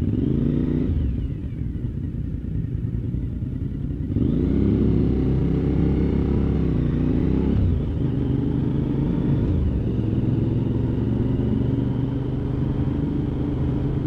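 Motorcycle engine under way, with wind rumble on the microphone. The engine note rises as it accelerates about four seconds in, drops back a few seconds later, then holds steady.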